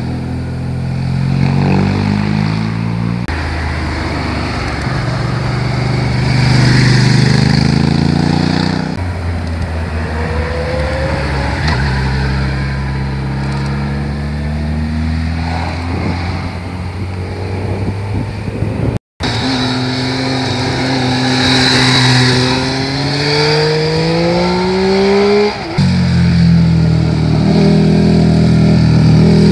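Motorcycle engines as several bikes in turn ride through a bend, each one's engine note sliding down and then rising as the rider rolls off and accelerates out. The sound changes abruptly from one bike to the next, with a very brief dropout about two-thirds of the way through.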